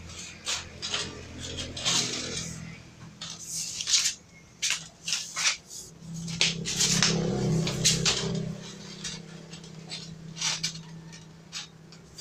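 Stiff steel fence wire clinking and scraping against a metal tube as it is handled and pushed in, a series of irregular sharp metallic clinks. A low steady hum swells up in the middle.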